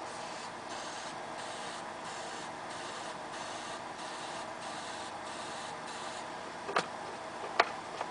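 Steady faint hiss, then a few sharp clicks near the end, the loudest about three-quarters of the way in, as a homemade PVC potato cannon is handled and readied for firing.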